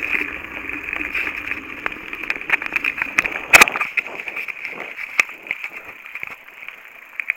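Mountain bike rolling fast over a gravel track: steady tyre crunch with irregular rattles and clicks, and one sharp loud knock about three and a half seconds in.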